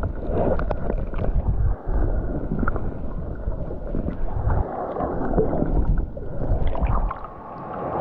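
Muffled underwater sound from a submerged camera: low rumbling water movement with scattered small clicks and knocks. About seven seconds in, the low rumble drops away as the camera nears the surface.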